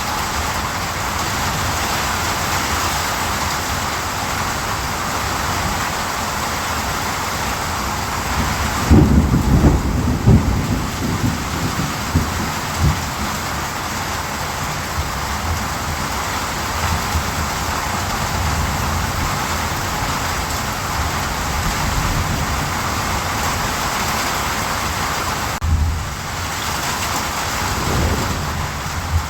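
Steady rain, with a low rumble of thunder about nine seconds in and a fainter rumble near the end.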